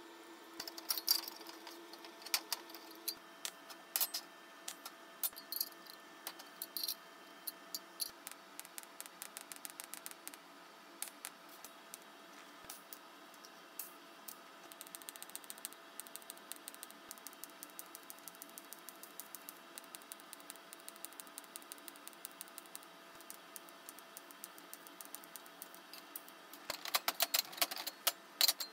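Light metallic clicks and taps of thin steel box-section pieces being handled and set down on a steel welding table, then a faint, fast, even ticking through the middle. Near the end, a wire brush scrubs on the steel.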